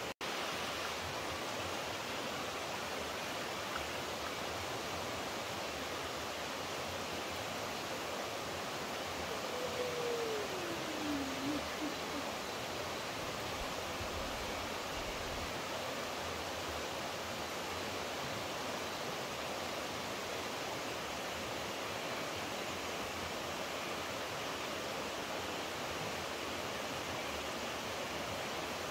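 Steady rush of running water, a stream or waterfall, with an even hiss throughout. About ten seconds in, a single short whistle slides downward in pitch over the water.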